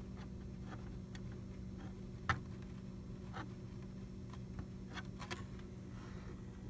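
Scattered faint clicks and taps from handling the plastic RC truck body while epoxy is spread over its cracks, over a steady low hum. One sharper click comes about two seconds in.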